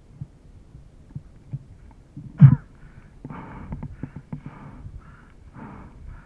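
Mountain bike knocking and rattling over a rough trail, with the rider breathing hard in repeated short breaths. One loud thump about two and a half seconds in.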